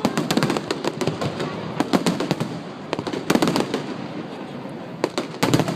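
Aerial fireworks exploding in rapid succession: a stream of sharp bangs and crackling, with heavier clusters of reports about 2 s in, around 3 s and near the end.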